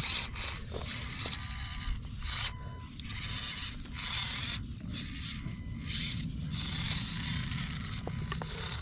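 Axial SCX24 micro crawler's small motor and gears whirring in stretches that start and stop as it is driven over rocks, with scraping of the little truck on the rock.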